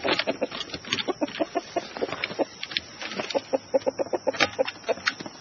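A chicken clucking, a quick run of short calls several a second.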